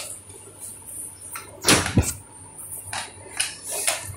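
Hard plastic knocks and clatter from a toy tool-set case and its toy tools being handled, with the loudest knocks a little under two seconds in.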